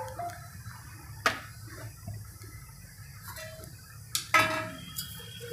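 Rolling pin rolling out paratha dough on a rolling board: a quiet rumble, with two sharp clicks, about a second in and about four seconds in, as the pin knocks the board.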